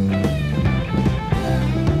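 A 1970 blues-rock band recording playing: electric guitar lines over bass and a drum kit, with a steady beat.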